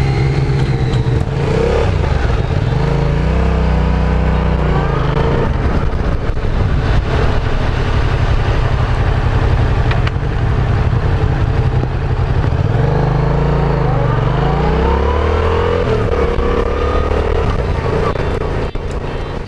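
Yamaha FZ sport motorcycle engine pulling away and accelerating, its pitch rising and falling back twice as it revs up and shifts, over a steady rushing noise of riding.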